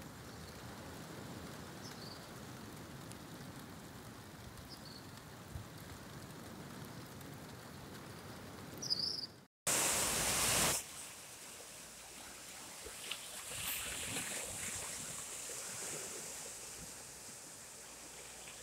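Steady outdoor wash of water, like surf on a shore, with a few faint bird chirps in the first half. About halfway the sound drops out for a moment, then a loud rush of noise lasts about a second before the steady wash returns, swelling and fading.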